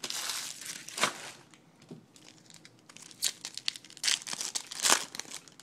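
Foil wrapper of a baseball card pack crinkling as it is picked up, then being torn open, with sharp crinkles and rips loudest about four to five seconds in.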